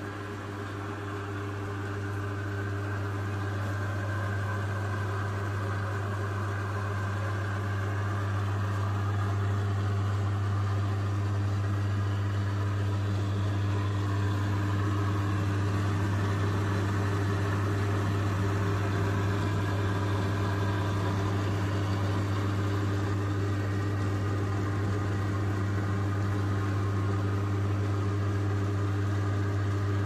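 Salvaged appliance electric motor driving a makeshift lathe's large belt-driven wheel: a steady electric hum with the whir of the belt and spinning wheel, building up over the first several seconds and then holding even.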